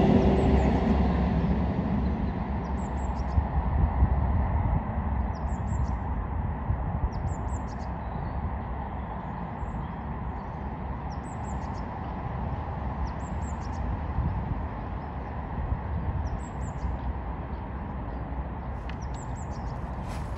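Steady low outdoor rumble with small birds chirping briefly every second or two.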